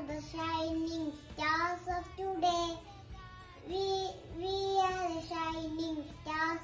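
A young girl singing, in short phrases of held notes with brief pauses between them.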